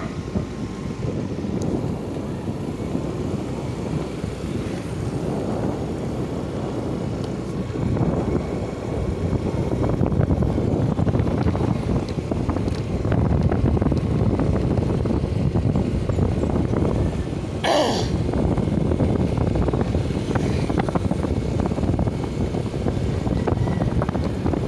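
Wind buffeting the microphone of a moving motor scooter, a steady low rushing with the scooter's running and tyre noise underneath, growing louder a few seconds in. A short sharp knock comes about 18 seconds in.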